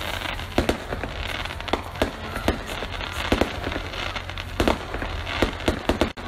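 A string of irregular sharp pops and cracks over a steady, rumbling noise.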